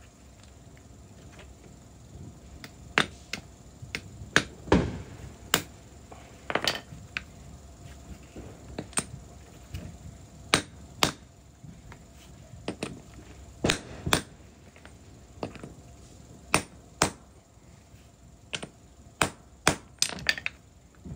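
About twenty irregular sharp knocks and taps of hand tools on metal, a couple ringing briefly, from work on a MerCruiser Alpha One Gen II drive shaft U-joint being reassembled.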